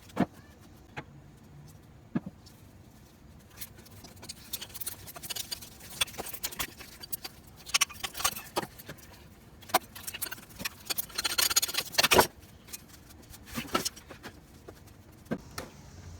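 Hand tools clicking and clinking on metal as the water pump bolts are undone: scattered sharp clicks, with a longer run of rapid clicking about three quarters of the way through.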